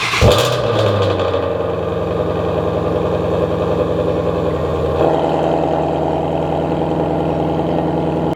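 Jeep Gladiator engine just started and idling steadily, with a slight change in its note about five seconds in.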